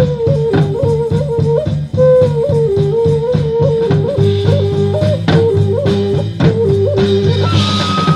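Background music: a guitar melody over bass and a steady drum beat.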